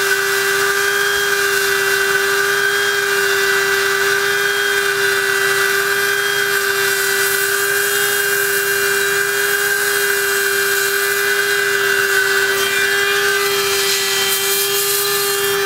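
Harbor Freight hot air plastic welder running steadily: its blower motor gives a constant whine over a rush of hot air.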